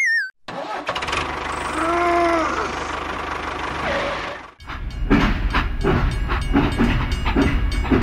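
Dubbed tractor engine sound effect: an engine turning over and running, with a short warbling tone about two seconds in. After a brief drop about four and a half seconds in, the engine runs louder with a regular pulse.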